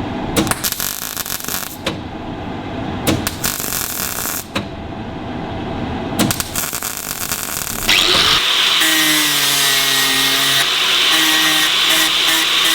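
Three short bursts of crackling electric welding on steel, then an angle grinder starts about eight seconds in and runs steadily on the metal, its whine dipping in pitch as it bites.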